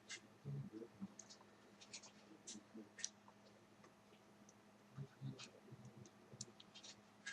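Faint, scattered small clicks and taps of laptop parts being handled and fitted during reassembly, with a few soft low knocks.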